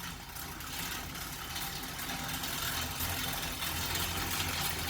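Assault AirBike Classic air bike spinning, its fan whooshing over a steady, dense rattle. The rattle comes from a fault the owner has not found: the chain is not making contact, and adjusting tension and the fan cage has not cured it.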